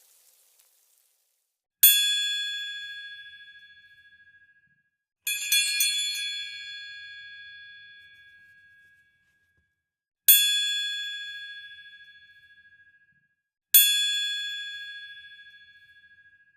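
Bell-like chime dings, four in all, each struck sharply and ringing out over two to three seconds. The second is a quick flurry of several strikes.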